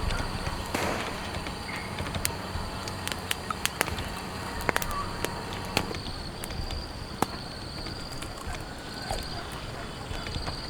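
Scattered drops tapping irregularly on a tent, over a steady background hiss. A faint high trill, like a bird or insect, pulses in the background.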